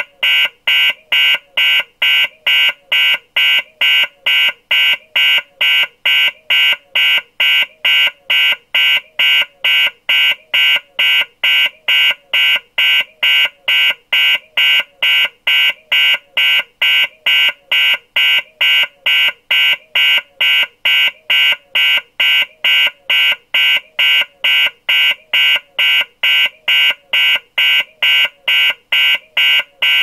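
Electronic alarm beeping steadily and rapidly, a high-pitched tone repeated about twice a second without change.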